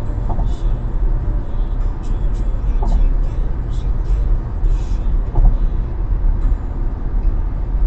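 Steady low rumble of a vehicle driving on the road, engine and tyre noise without a break.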